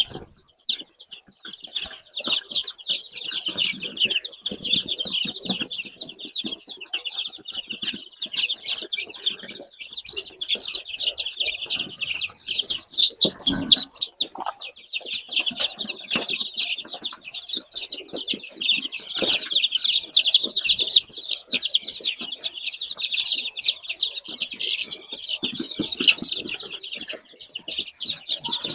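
A large flock of young chicks peeping continuously, many high, rapid calls overlapping into a steady chatter.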